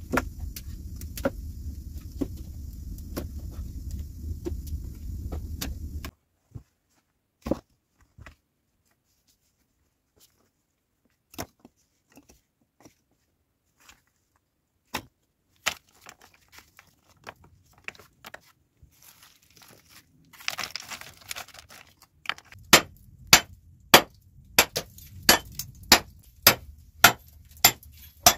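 Firewood logs knocking as they are stacked, over a steady low rumble; then scattered clacks of stones being handled. Near the end, a hammer striking rock in a regular run of sharp clinks, about two a second, which are the loudest sounds.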